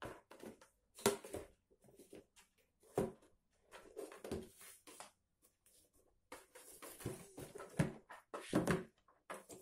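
Small cardboard box being pawed, nosed and shoved across a laminate floor by a cat: irregular scuffs, scrapes and knocks of cardboard, with the sharpest knocks about a second in, at three seconds and twice near the end.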